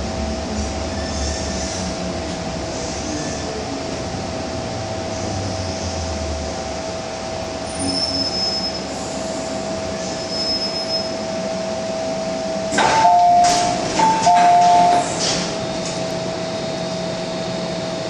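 MTR M-Train electric multiple unit slowing into a station: low running rumble that fades as it brakes, over a steady electrical whine. About 13 seconds in, the doors release with a clunk and slide open while a two-note chime sounds twice.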